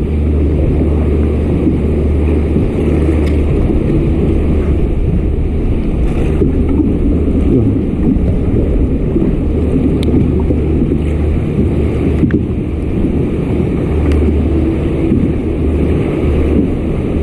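A fishing kayak's engine running steadily as the kayak trolls: a low, even rumble, with water noise around the hull.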